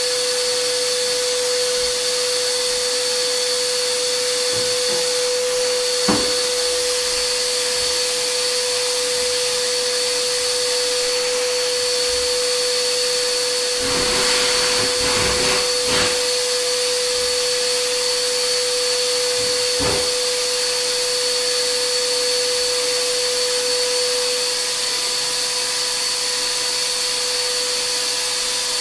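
Steady whirring of an electric motor moving air, with a constant whine over a rushing hiss. A single knock early, a short clatter about halfway through, and another knock a few seconds later.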